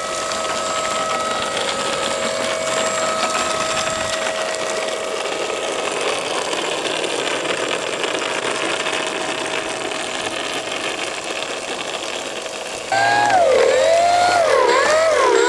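Electric motor and propeller of a Mentor RC trainer plane running with a steady whine over a rushing noise. Near the end the whine swings up and down in pitch several times.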